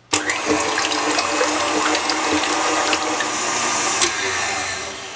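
Stand mixer running at high speed, its wire whisk beating egg whites toward stiff peaks. A steady motor whine with the whisk whirring in the steel bowl starts abruptly and fades out near the end.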